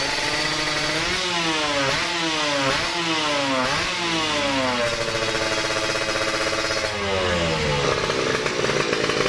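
Yamaha F1ZR's two-stroke single-cylinder engine, tuned to a 116 spec, revved in a string of quick throttle blips, then held at a steady higher speed and let drop back toward idle about seven seconds in. The engine is being run while its carburettor mixture is set.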